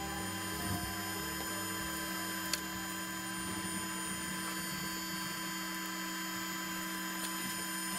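Steady electrical mains hum with several high whining tones held over it, and a single sharp click about two and a half seconds in.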